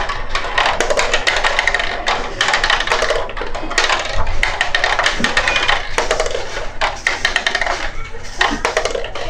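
Small plastic balls clattering down the plastic tube and spiral ramps of a toddler's ball-drop tower toy: a busy rattle of quick hard knocks that goes on almost without a break.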